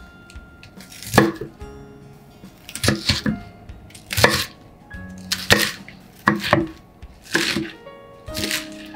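Chef's knife cutting through napa cabbage leaves against a wooden cutting board, in separate strokes about one a second, unevenly spaced and sometimes in quick pairs.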